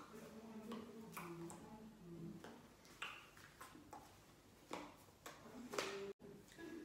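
Faint scattered clicks, taps and rustles from hands touching each other, the body and clothing during signing.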